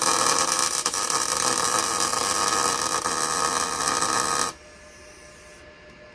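Arc welder crackling and sizzling while it lays weld between the teeth of a Nissan 240SX's differential spider gears, welding the open diff solid to lock it. The weld runs steadily and stops abruptly about four and a half seconds in.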